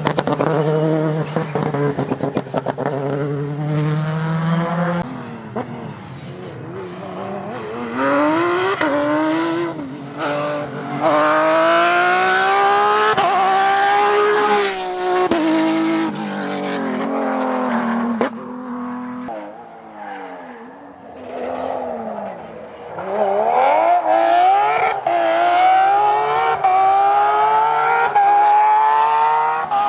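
Rally cars driven flat out. Their engines rise in pitch again and again through the gears, dropping sharply at each shift, with a steadier low engine tone in the first few seconds.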